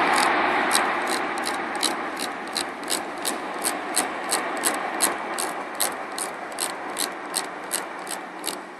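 Jet engine roar of a Boeing 737-800's CFM56 turbofans dying away steadily as the airliner rolls out and slows after landing. A regular series of sharp high clicks, about three a second, runs over it and stops near the end.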